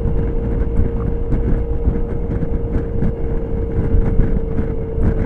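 Suzuki Burgman scooter cruising at highway speed: a steady drone from the engine and road, with a constant mid-pitched tone, under wind rumbling on the microphone.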